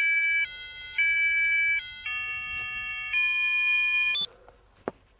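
Loud electronic tone melody: steady chords of several beeping tones that jump to a new pitch every half second to a second, cut off abruptly by a click about four seconds in. A single short knock follows near the end.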